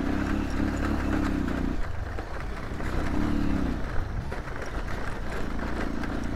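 Motorcycle engine running over a rough gravel track, with a steady low rumble and the engine note rising three times as the throttle is opened.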